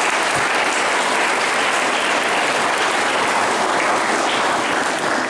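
Audience applauding, a dense, steady clatter of many hands clapping that eases slightly near the end.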